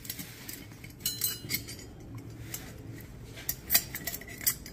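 Bronze trolley-harp parts, a cast harp and flat phosphor bronze spring fingers, clinking and tapping together as they are handled: a string of light, irregular metallic clicks, the loudest about three and a half seconds in and again near the end.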